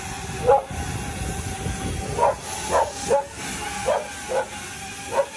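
Wing delivery drone hovering overhead, its many small rotors giving a steady hum over a rush of air. A dog barks about seven times over the top of it, the barks being the loudest sounds.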